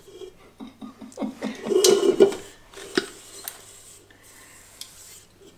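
A utensil scraping thick banana bread batter from a bowl into a loaf tin: a run of quick scrapes and knocks over a second or so, then a sharp tap about halfway through.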